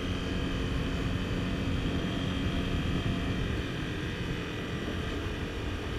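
Honda CBR250R's single-cylinder engine running steadily while riding at road speed, with wind noise on the microphone.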